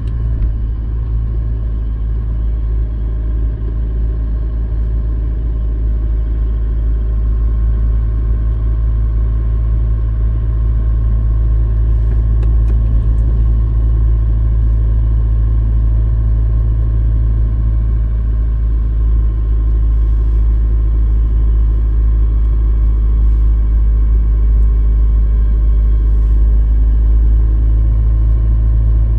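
Car driving on a wet road, heard from inside the cabin: a steady low rumble of engine and road noise, with a few faint clicks.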